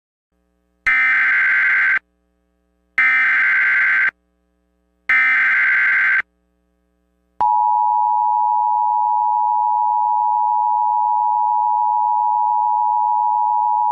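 Emergency Alert System SAME header: three identical one-second bursts of shrill, warbling digital data tones, each about two seconds apart, encoding the alert. About seven seconds in, the steady two-tone EAS attention signal begins, the tone that announces an emergency alert such as a flash flood warning.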